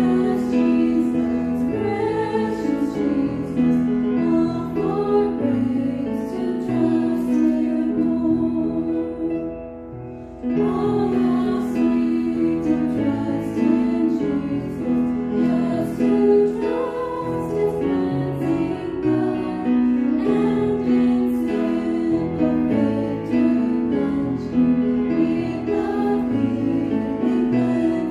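A woman singing a slow Christian song into a microphone over instrumental accompaniment. The music fades almost to a stop for about a second around ten seconds in, then picks up again.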